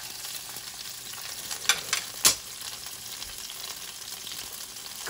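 Salmon fillets frying skin-side down in hot olive oil in a skillet, a steady sizzle. About halfway through come three sharp clicks, the third the loudest, from the metal tongs against the pan.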